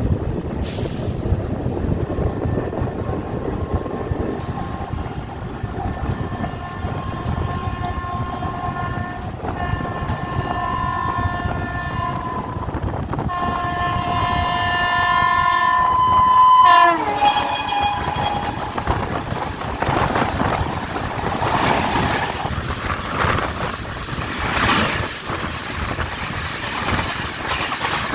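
Train horn sounding several long blasts as the train approaches, its chord dropping suddenly in pitch as it passes. Then the noisy rumble of the train going by.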